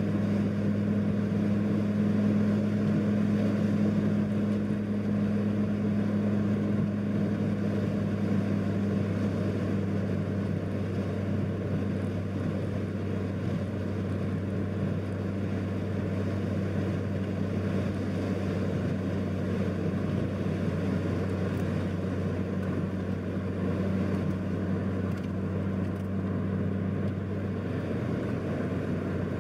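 Steady low hum and rumble of a vehicle driving at speed on a paved highway: engine drone and tyre noise, holding constant without shifts or revving.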